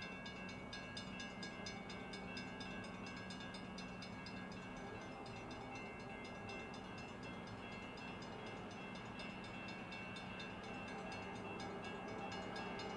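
Railroad grade-crossing warning bell ringing in rapid, even strokes, the signal that a train is approaching; it stops at the very end.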